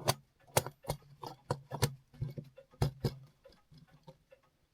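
Irregular clicks and knocks of clock movement parts being handled as a spring barrel is fitted into a Herschede clock movement, about a dozen light strikes that thin out and grow fainter in the last second or so.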